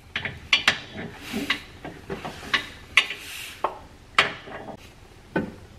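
Irregular sharp metallic clicks and short scrapes from a socket and torque wrench being fitted and worked on the engine mount's through bolt.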